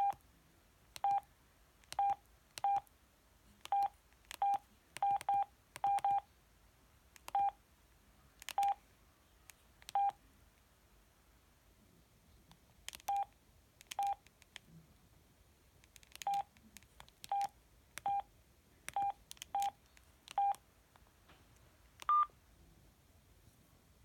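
Samsung SGH-E700 flip phone's keypad beeps: about twenty short single-pitch tones, one per key press, at irregular intervals while the menus are stepped through, with one higher-pitched beep near the end.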